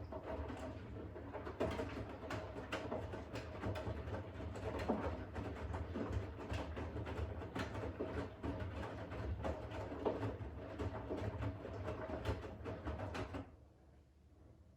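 Siemens iQ500 front-loading washing machine drum turning during the wash: wet laundry tumbling and sloshing with many small knocks over a steady motor hum. It stops abruptly about 13 seconds in as the drum pauses in its on-off wash rhythm.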